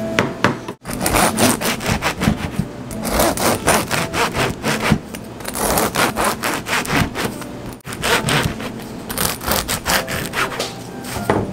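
Long bread knife sawing back and forth through a crusty cranberry-walnut whole-wheat baguette on a cutting board, the crust crackling with each quick stroke. The slicing comes in several runs, broken briefly about a second in and near eight seconds.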